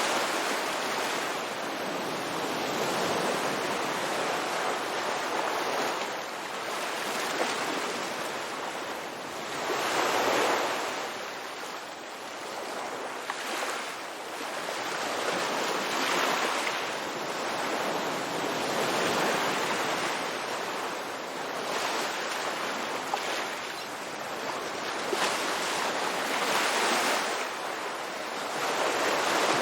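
Ocean waves breaking and washing on a beach, a steady rush that swells and ebbs every few seconds.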